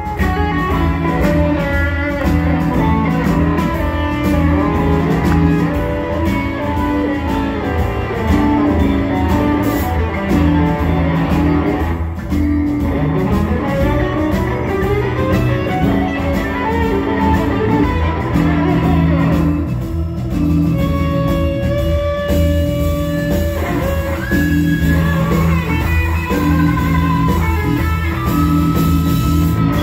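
Live blues band playing an instrumental passage: electric guitars over bass and drums, with a steady beat and held, bending guitar notes.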